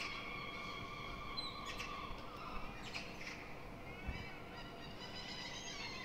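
Gulls calling outdoors: a high held note for the first couple of seconds, then a quick string of short calls about four to five seconds in, over a faint background hum.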